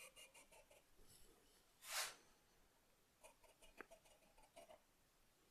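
Near silence, with a soft brief rustle about two seconds in and a few faint light clicks later on.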